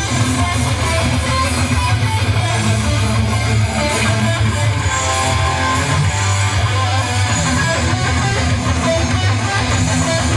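Background music led by guitar, with a steady bass line.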